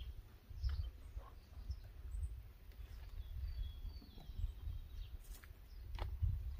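Low rumble of wind on the microphone outdoors, with faint bird chirps in the middle and a couple of soft clicks near the end.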